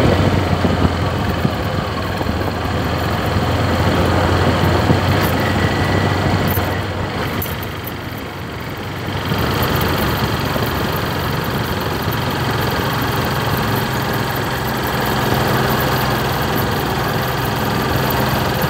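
A motorcycle engine runs steadily while under way, with wind and road noise throughout. About eight seconds in the sound dips briefly, then picks up again on a different engine note.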